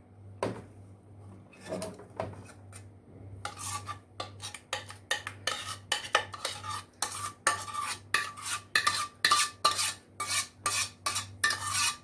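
A metal spoon scraping and knocking against a pot as thick boiled broth is emptied into a tray. A few separate knocks at first, then from about a third of the way in a quick, even run of scrapes, about three a second, each with a metallic ring.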